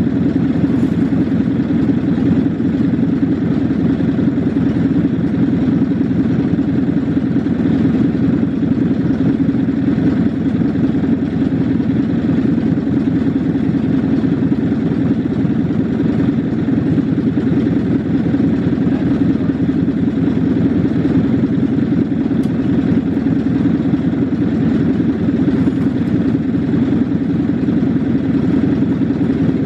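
Small Craftsman lawn mower engine running steadily at an even speed, warming up after a cold start.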